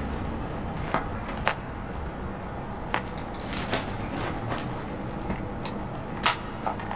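Plastic wrapping crinkling and rustling as it is pulled off a folded baby stroller, with sharp clicks and knocks from the stroller's frame; the loudest knock comes about six seconds in, as the stroller is lifted and turned over. A steady background hiss runs underneath.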